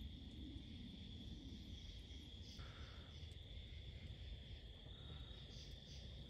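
Faint, steady, high-pitched insect trill, with a few faint short calls above it.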